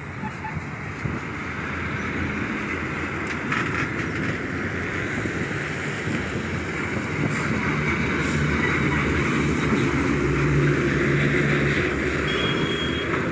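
Heavy trucks driving past on a highway bend: diesel engines running with tyre noise, steady throughout and growing louder toward the end as another truck comes close. A short high tone sounds near the end.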